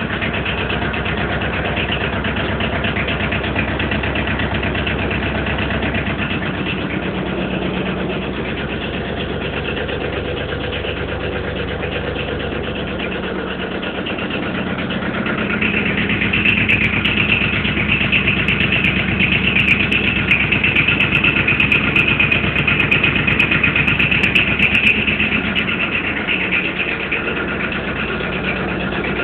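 Lombardini two-cylinder diesel engine of an Arctic Cat 700 ATV running steadily, its fuel rate and injection timing turned up. It grows louder and brighter for about ten seconds in the middle, then settles back.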